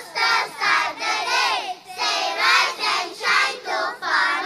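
A chorus of young children singing together in short, rhythmic phrases.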